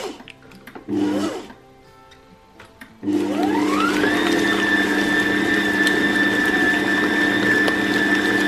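Bosch OptiMUM stand mixer's motor driving its wire whisk through butter, sugar and eggs. A brief spin-up and wind-down comes about a second in. About three seconds in the motor starts, its whine rising for a second to a steady high speed.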